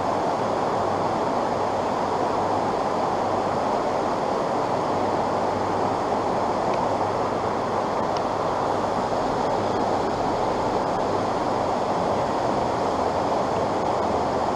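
Steady rush of a stream's current running over rocks, with no breaks or changes.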